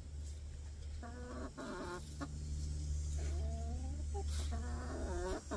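Chickens clucking: three drawn-out calls of a second or so each, over a steady low hum.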